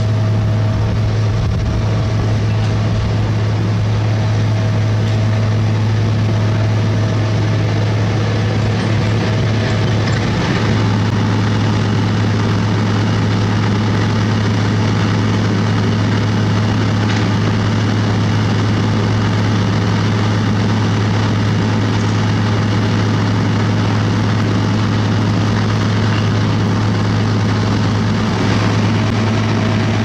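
Heavy diesel engines of road-paving machinery running steadily at a constant low hum, with a slight change in the sound about ten seconds in.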